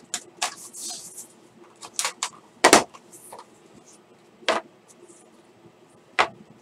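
Hands unsealing and opening a small cardboard trading-card box: the paper band torn off, the lid and contents sliding out. A string of sharp clicks, taps and short scrapes, the loudest about two and a half seconds in.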